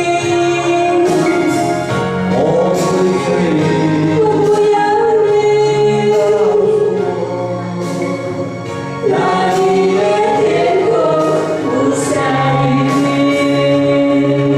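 A song sung with musical accompaniment; the sung melody carries over a steady backing, dipping slightly before a fuller phrase comes in about nine seconds in.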